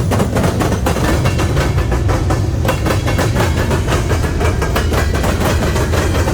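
Train passing close by, its wheels clicking rapidly over rail joints above a steady low rumble.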